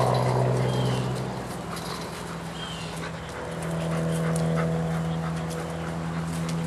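Dogs barking in outdoor kennel runs, over a steady low hum.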